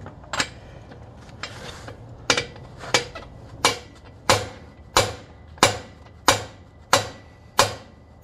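Hammer blows on a bearing-race driver, driving a bearing race into the bore of an AAM 11.5 rear axle housing: one strike, a short pause, then a steady run of sharp metallic strikes about one and a half a second. The last blows begin to ring, the sign of the race bottoming out in its bore.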